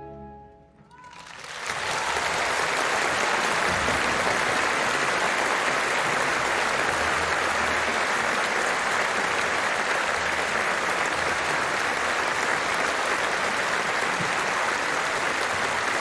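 The orchestra's last held chord dies away within the first second, then an audience breaks into applause and keeps clapping steadily.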